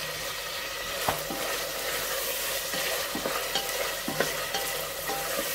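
Parboiled lamb cubes sizzling in olive oil in a stainless steel pot as a wooden spoon stirs them, with a few sharp knocks of the spoon against the pot about a second in and near four seconds in.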